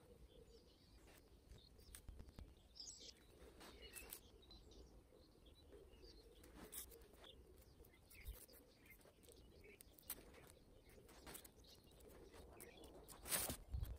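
Quiet outdoor ambience with soft rustling and small clicks as hands work cord and fabric into a camouflage jacket. A louder rustle comes about a second before the end.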